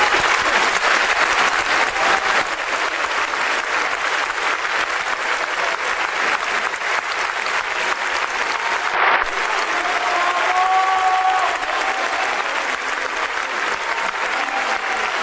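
Large concert-hall audience applauding steadily, many hands clapping at once in a dense, continuous patter.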